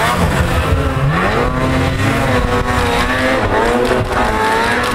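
Snowmobile engine revving hard under load while climbing a steep snow slope. Its pitch rises and falls repeatedly as the throttle is worked.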